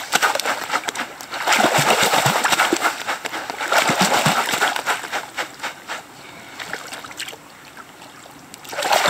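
Water splashing and sloshing as a wooden-framed gem sieve full of river gravel is jigged up and down under the water, settling the heavy stones to the bottom. It comes in repeated loud bursts, eases off after about six seconds, and there is another splash near the end.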